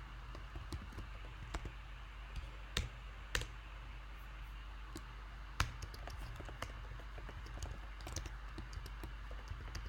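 Irregular, sharp clicks of a computer keyboard and mouse, each keystroke or click separate rather than fast continuous typing, over a faint steady hum.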